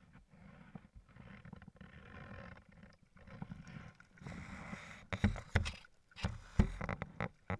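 A hooked fish splashing at the surface close by as it is brought in, with water sloshing and sharp knocks of handling. The splashing grows about four seconds in, and the loudest knocks and splashes come in the last few seconds, over a low handling rumble.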